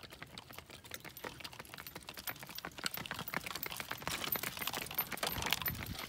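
Hooves of a pair of miniature horses clip-clopping on asphalt as they pull a two-wheeled cart, a quick run of sharp clicks that grows louder as the team passes close by about four seconds in.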